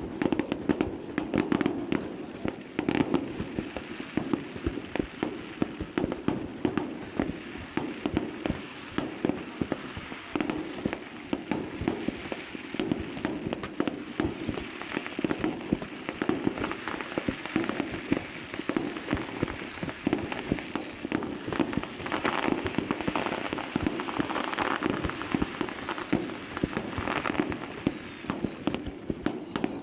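Fireworks display: a dense, continuous run of bangs and crackling pops, with a few falling whistles in the second half.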